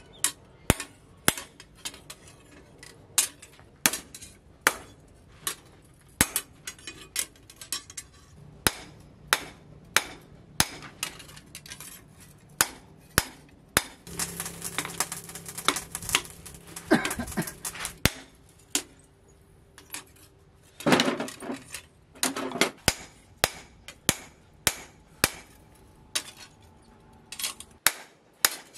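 Hammer blows on a steel knife blade resting on a round steel anvil: sharp metallic clinks, each with a short ring, at an uneven pace of about one to two a second. A few seconds of rougher noise come about halfway through.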